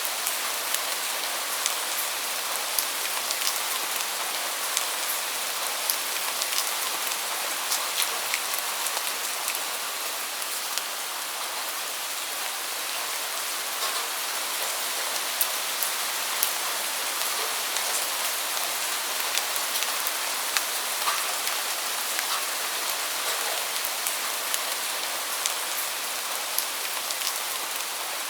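Steady rain: an even hiss with many sharp, separate drop ticks scattered through it.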